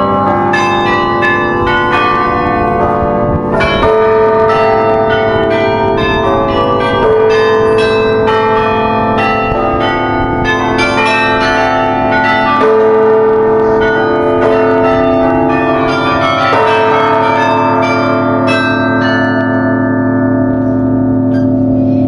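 Carillon bells playing a tune at close range, very loud: many quick strikes on different notes, each ringing on under the next. Near the end the strikes thin out and the bells ring on.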